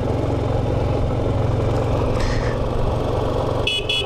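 Motorcycle engine running steadily as the bike rides along at low speed, heard from the rider's camera. Near the end come two short high-pitched beeps.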